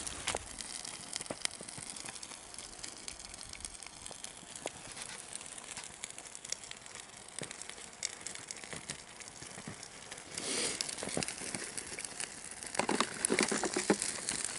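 A trash fire crackling and popping with many small irregular snaps, growing louder and busier near the end.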